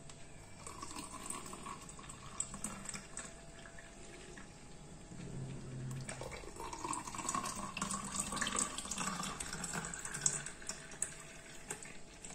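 Blended watermelon milkshake pouring in a thin stream into tall glass mugs, one glass and then the other, with a second pour starting about halfway through.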